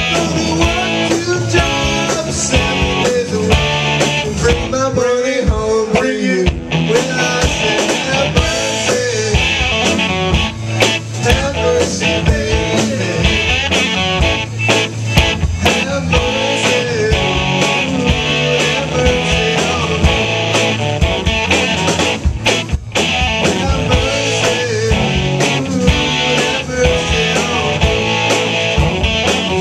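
A live rock band playing: electric guitars, bass, drums and keyboard together, with steady drum hits.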